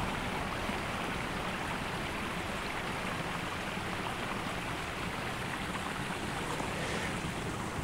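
Steady rushing of flowing river water, with no distinct events.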